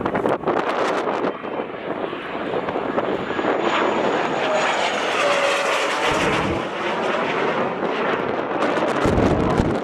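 Boeing-Saab T-X jet trainer passing on its landing approach: a rushing jet engine noise that swells to a peak about halfway and eases off, with a faint high whine over it. Wind buffets the microphone now and then.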